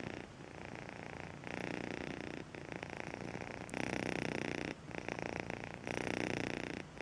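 Domestic cat purring close up, the purr swelling and easing in alternating stretches of about a second each.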